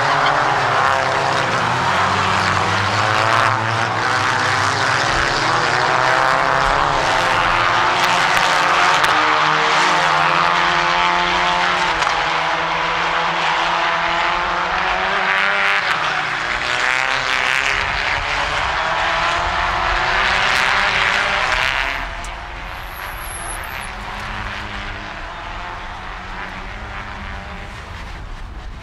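Engines of a pack of Volkswagen Ameo race cars at high revs, their pitch rising and falling through gear changes as the cars pass. Loud for most of the stretch, dropping noticeably about 22 seconds in.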